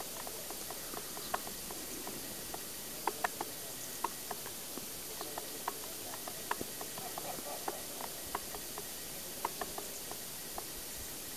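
Shallow water trickling over rocks: a steady hiss dotted with irregular small plinks and clicks, a few a second.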